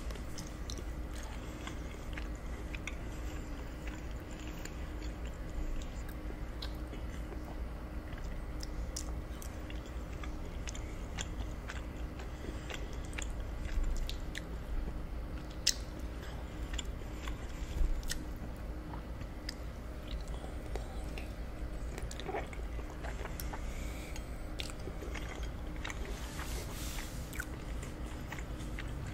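Close-miked chewing and biting of lemon butter lobster ravioli, with scattered sharp clicks from the mouth and fork.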